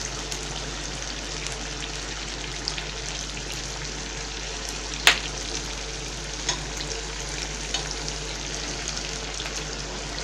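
Browned pieces of wild mallard duck sizzling steadily in fat in a frying pan, with scattered small pops and crackles as the fork moves among them, near the end of frying. A single sharp click stands out about five seconds in.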